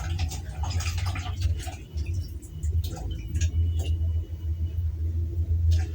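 Kitchen handling while cleaning beans: scattered light clicks and taps, about one every half second to a second, over a steady low hum.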